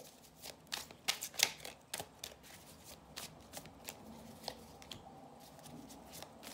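A tarot deck being shuffled by hand: cards clicking and flicking against each other in quick, irregular runs, busiest in the first couple of seconds.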